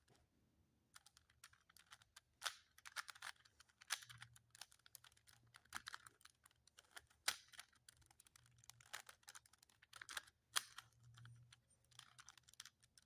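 A plastic 3×3 Rubik's cube having its layers turned in quick succession, making a faint, irregular run of clicks and clacks that starts about a second in.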